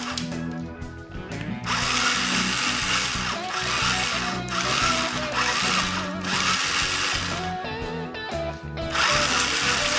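Electric motor of a wooden rubber-band Gatling gun whirring in bursts of a second or two as it fires rubber bands, several times with short pauses between. Background music plays throughout.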